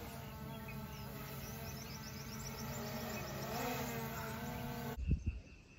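Quadcopter drone flying close by: its propellers make a steady buzz of several tones, and the pitch dips and rises about three and a half seconds in. A rapid series of high chirps runs over it for a moment. The buzz cuts off abruptly near the end, followed by a couple of low thumps.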